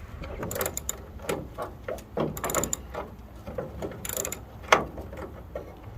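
Ratchet wrench with an 11/16 socket clicking in short bursts while working the rusted tailgate hinge bolt loose, with one sharp metallic knock about three quarters of the way through.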